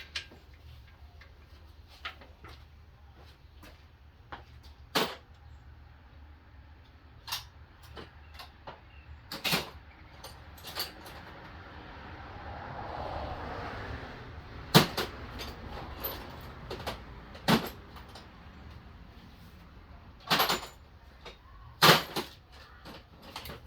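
Hand tools and metal parts being handled: scattered clinks, taps and knocks at irregular intervals, a few of them sharper and louder, with a soft rush that swells and fades midway.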